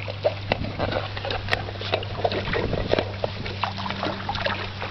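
Small dog wading and paddling through shallow water, with irregular small splashes and sloshing, over a steady low hum.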